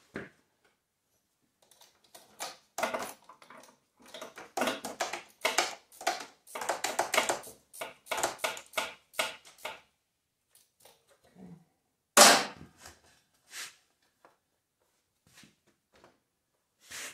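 Handling noises of hands working on a garden tractor's dash panel and wiring: a dense run of clicks, taps and rustles, then one loud sharp knock about two-thirds of the way through, and a few scattered clicks after it.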